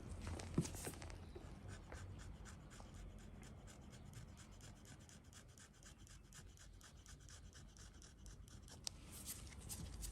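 Pedicure tool scraping hardened, cracked skin on the sole of a foot in quick, even strokes, about four or five a second, with a sharp click about half a second in.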